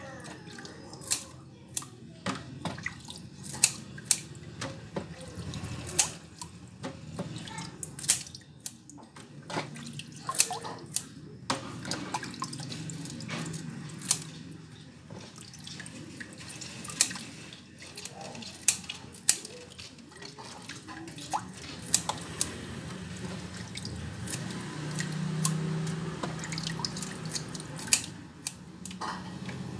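Scissors snipping the heads and feelers off raw shrimp over a plastic basin of water: sharp, irregular snips, with water splashing and dripping.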